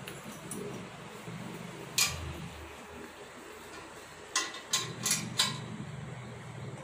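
Sharp metallic clicks from a hand-pushed poultry manure raking machine being handled, its steel frame and spiked roller knocking: one click about two seconds in, then a quick run of about five clicks a little past the middle, over a low steady hum.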